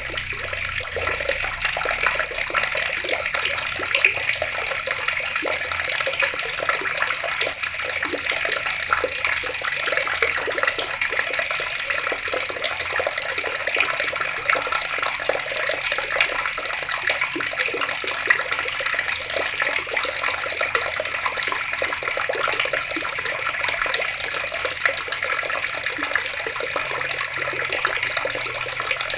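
Water tap running steadily, its stream splashing down with an even, continuous hiss.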